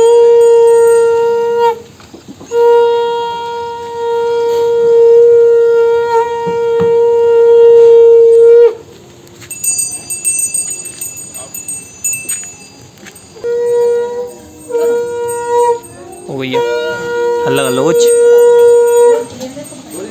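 Hindu ritual conch shell (shankh) blown in long, steady, single-pitched blasts: one ends about two seconds in, a long one of about six seconds follows, and shorter blasts come near the end. A small brass hand bell rings in the pause between blasts.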